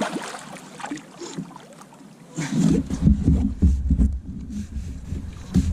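Water splashing and knocks against a kayak as a large flathead catfish is brought alongside to be landed. It grows heavier and louder from about halfway through.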